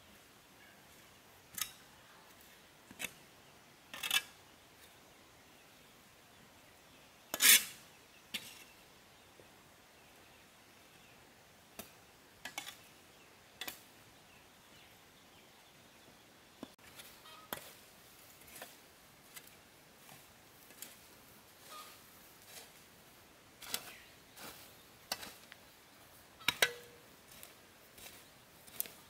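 Scattered sharp clicks and knocks at irregular intervals, sparse at first and more frequent in the second half, the loudest about seven seconds in.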